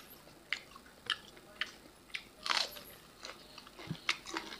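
Close-up eating sounds of people chewing rice and pork by hand: scattered short mouth clicks and smacks, with one louder, longer one about two and a half seconds in.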